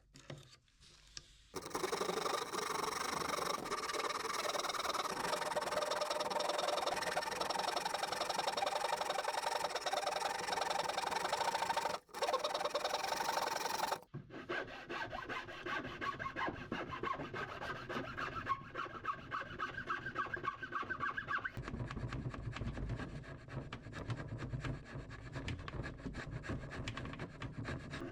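A tool cutting and rasping wood along the broken edge of a dresser drawer, working it down to a straight line. The rasping is steady and breaks off briefly twice, around twelve and fourteen seconds in, then goes on with a finer, more rhythmic texture.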